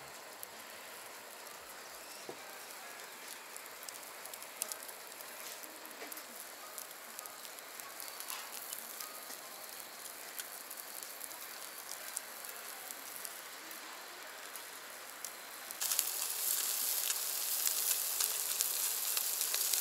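A wood-and-charcoal fire under a wire grill basket of whole gizzard shad, crackling with small scattered pops. About sixteen seconds in it turns into a louder, steady sizzle of the fish grilling over the coals.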